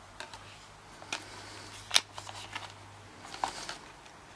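Plastic clicks and light rattling from a multi-disc DVD case being handled while a disc is pried off its snap-in centre hub. The loudest single click comes about halfway through, with a quick cluster of smaller clicks near the end.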